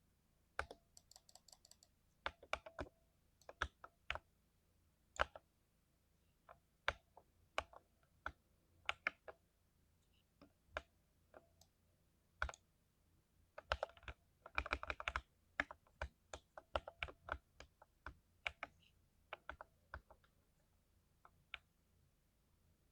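Typing on a lubricated 60% mechanical keyboard with PBT keycaps: separate, spaced-out keystrokes, with a quicker run of typing about two-thirds of the way through.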